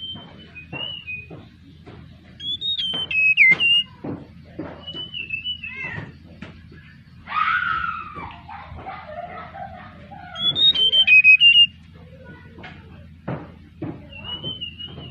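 Tledekan bakau (mangrove blue flycatcher) song used as a trapping lure: short high whistled phrases repeating, with a louder, rougher call about seven seconds in that slides down in pitch. A faint steady low hum runs underneath.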